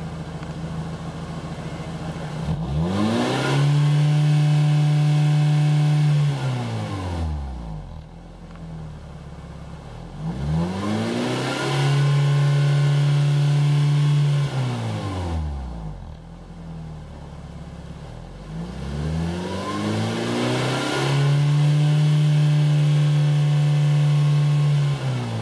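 Nissan HR16DE 1.6-litre four-cylinder petrol engine heard at its tailpipe, revved up three times from idle; each time the revs climb, hold high and steady for a few seconds, then fall back to idle.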